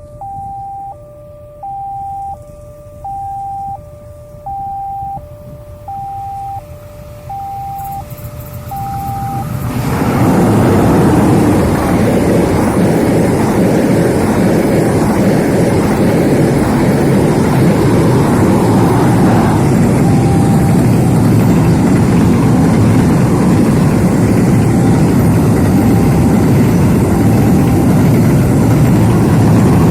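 A level-crossing warning signal sounds a two-note alternating chime, about one cycle a second. About ten seconds in, the loud, steady rumble of a passenger train hauled by two diesel locomotives passing close takes over and drowns out the chime.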